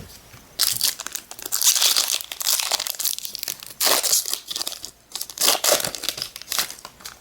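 Pokémon card booster pack wrapper being crinkled and torn open, a run of irregular crackling, crinkling bursts.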